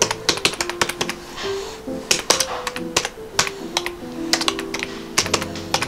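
Computer keyboard being typed on: quick, uneven key clicks, heard over background music with held notes.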